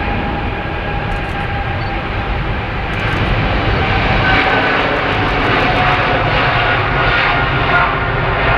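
Boeing 777-300's twin turbofan engines at take-off thrust during the take-off roll: a steady jet rumble with a whine over it, growing louder about three seconds in.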